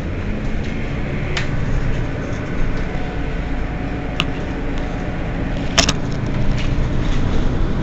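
Mercedes-Benz Citaro facelift city bus engine running at a steady low rumble, with a few sharp clicks and knocks, the loudest a short cluster about six seconds in.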